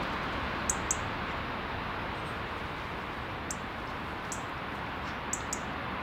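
Short, high chirps of small birds, six in all, two close together about a second in and two more near the end, over a steady outdoor background noise.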